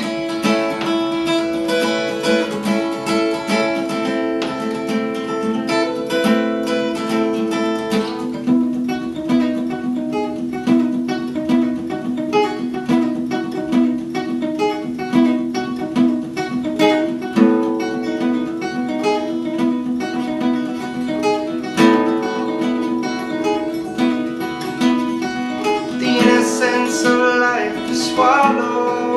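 Solo steel-string acoustic guitar strummed and picked through an instrumental break of a slow folk song, with the player's voice coming in briefly near the end.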